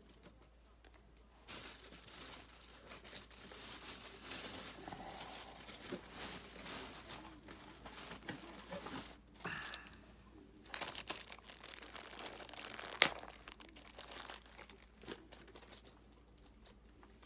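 Foil wrapper of a Topps baseball card pack crinkling and tearing open, with irregular rustling and one sharp snap about three-quarters of the way through.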